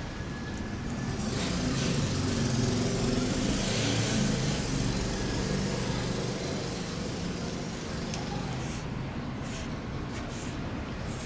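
A motor vehicle passing by. Its engine grows louder over the first few seconds, is loudest about four seconds in, then slowly fades.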